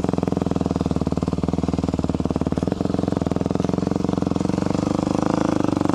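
Dirt bike engine running steadily, with an even, rapid firing rhythm.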